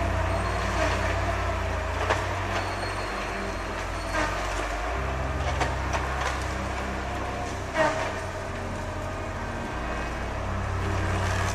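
Heavy machine's diesel engine running steadily at a low drone, with a few short knocks and cracks now and then, the loudest about eight seconds in.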